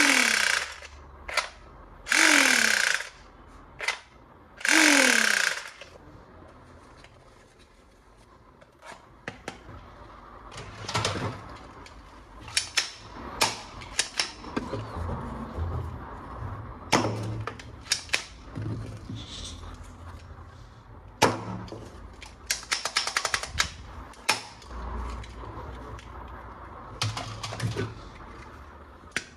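Plastic toy guns being handled: three loud hissing bursts, each with a falling tone, in the first few seconds, then scattered clicks, snaps and knocks of plastic parts, with a fast rattle about two-thirds of the way through.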